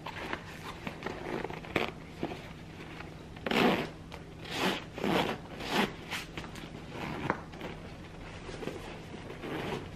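Metal zipper on the front pocket of a nylon bucket bag being pulled back and forth in several short strokes, with nylon rustling. The zipper runs a little rough, and the owner thinks it may need waxing.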